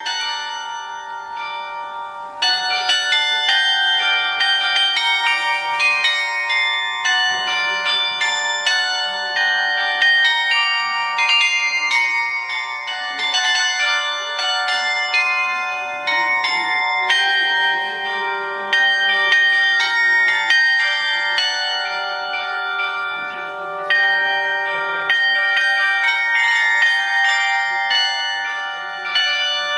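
Monastery bells being rung: several bells of different pitches struck in quick succession, their ringing overlapping. The ringing grows louder about two and a half seconds in.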